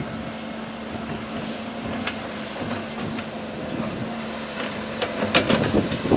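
Airbus A321neo jet engines running as a steady, distant hum, mixed with wind buffeting the microphone, the gusts growing stronger near the end.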